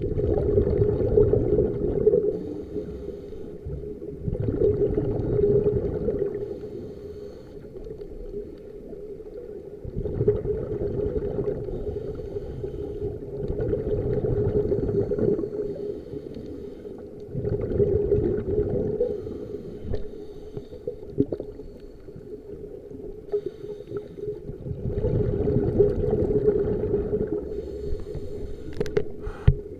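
Scuba diver breathing through a regulator underwater: bubbling exhalations in swells of two to three seconds, every four to seven seconds, with quieter gaps between. A sharp click near the end.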